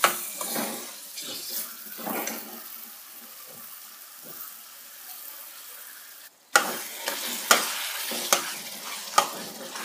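Beef liver sizzling in oil in a karahi over full flame, stirred with a metal spatula that scrapes along the pan. After a short gap about six seconds in, the sizzle is louder and the spatula knocks against the pan about once a second.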